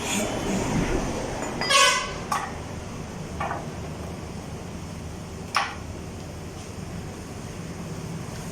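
A hammer knocking on metal while a motorcycle wheel is being fitted: a few separate knocks, the sharpest about halfway through with a brief ring. A short horn-like toot sounds about two seconds in, over steady traffic noise.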